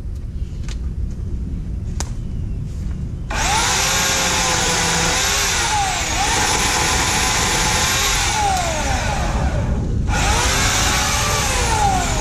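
Homelite 16-inch corded electric chainsaw starting up about three seconds in and running at full speed, its high motor whine dipping in pitch several times as it cuts into the brush. It stops briefly a couple of seconds before the end and starts again.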